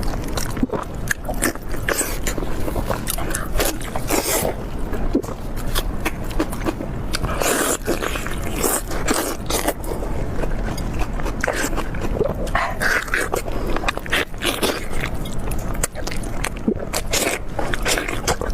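A person biting and chewing meat close to the microphone, a dense, irregular run of wet clicks and crunches.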